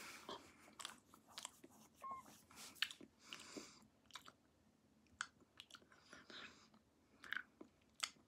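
Faint mouth sounds of a person sucking and chewing a hard sour candy: scattered short wet clicks and smacks, with a few soft breaths between them.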